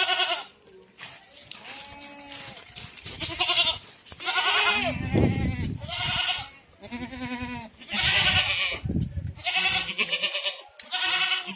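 Goats bleating over and over, about ten separate calls at varied pitches.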